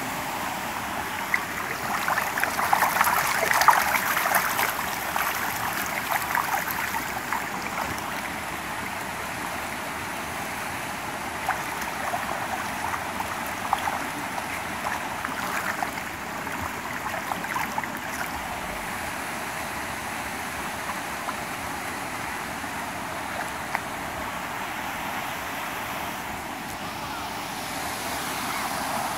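Water running and splashing through concrete trout-farm raceways, a steady rushing wash. About two to five seconds in it is louder, with a burst of crackling splashes where trout crowd and break the surface.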